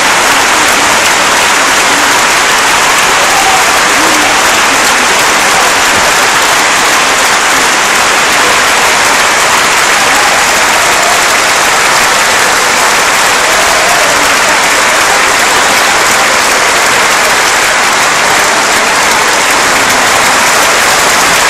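Large audience applauding steadily, the claps merged into one dense, even sound.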